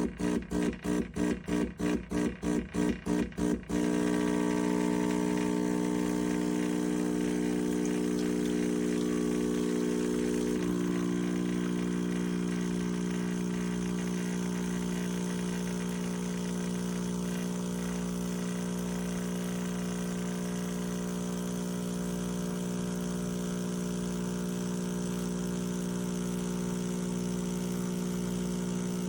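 Espresso machine's vibration pump, pulsing on and off about three times a second for the first few seconds, then running steadily with a droning hum whose tone shifts slightly about ten seconds in.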